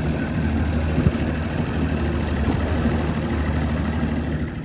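Fishing boat's engine running steadily at speed, a constant drone under the rush of wind and water, with one brief knock about a second in.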